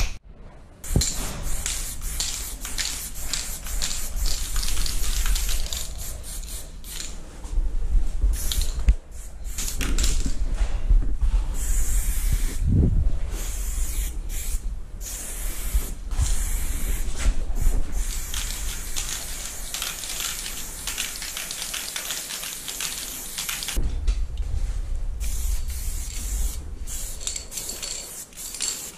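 Aerosol spray-paint cans hissing onto a wall in repeated bursts of varying length, with short breaks between strokes.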